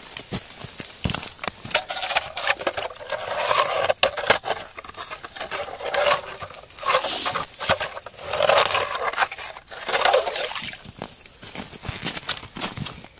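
Hand ice auger cutting and scraping through ice, with crunching clicks and several longer grinding surges as the hole is widened, while broken ice crunches and shifts.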